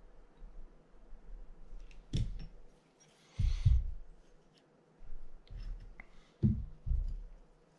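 Clicks and light knocks of small fishing-reel parts and hand tools being handled and set down on a workbench: about five separate knocks, with a short scraping rustle a little over three seconds in.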